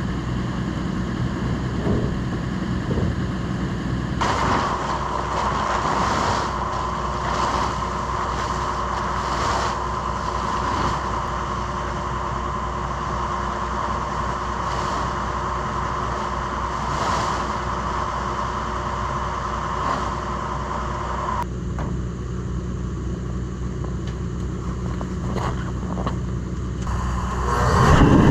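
Diesel tractor engine idling steadily in sub-zero cold. From about four seconds in to about twenty-one seconds a higher whirring hiss runs over it, and near the end a louder low rumble swells up.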